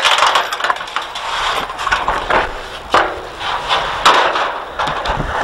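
Clanks and knocks of a chain-latched metal gate being closed, followed by rustling footsteps through dry grass; a string of separate knocks, the loudest about three and four seconds in.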